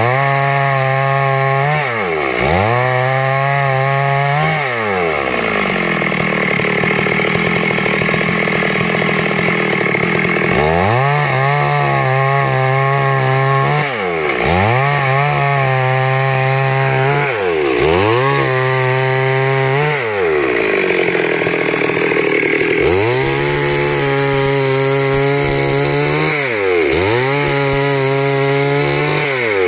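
Two-stroke chainsaw running at high revs while cutting lengthwise into a log. The engine pitch repeatedly dips and climbs back every second or two, broken by longer stretches of steady, loaded cutting.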